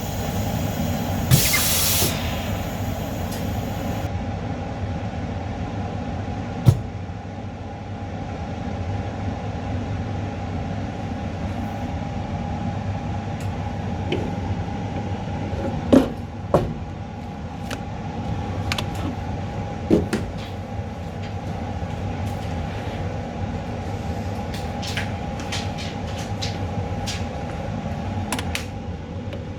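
Steady mechanical drone with a faint high hum, broken by a few sharp clicks and taps.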